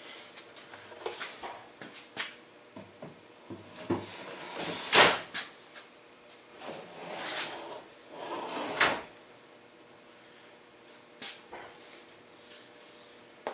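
Kitchen cabinet drawers on metal drawer slides being pulled open and pushed shut several times to check the newly mounted drawer fronts: short sliding rushes and wooden knocks as the drawers close, the loudest knock about five seconds in.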